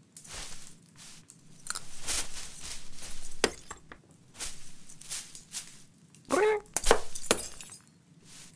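Cartoon sound effects of glass Christmas baubles smashing as a cat clambers through the tree: a stretch of rustling branches, a crash about three and a half seconds in, then a short rising meow followed by two more sharp crashes near the end.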